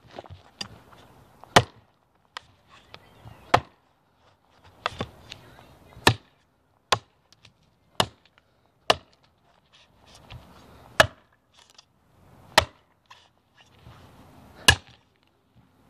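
Heavy quarter-inch-thick 1095 carbon-steel chopping blade (TOPS El Chete) hacking into a log: about nine sharp chops, one every second or two, with fainter knocks in between.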